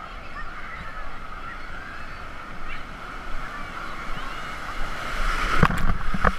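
A crowd of swimmers chattering, calling and shrieking together in a busy water-park wave pool, with two sharp thumps near the end.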